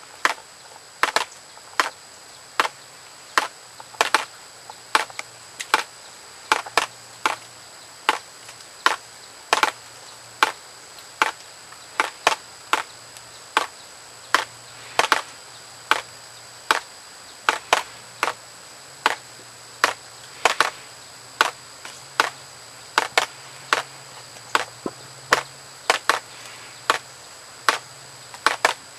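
Light rain with big drops dripping close by: sharp, irregular taps about two a second. Two steady, high, thin tones run underneath.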